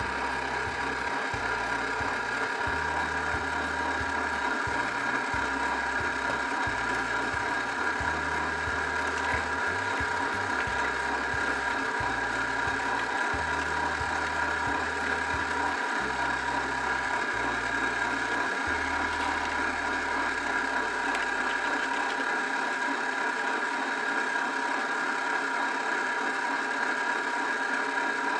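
Nostalgia retro slush drink maker running on its freeze setting, its motor and gears churning the mix with a steady whine.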